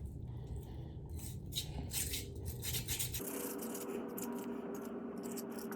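A cleaning tool being run through a Smith & Wesson M&P pistol barrel, with irregular scratchy scraping strokes.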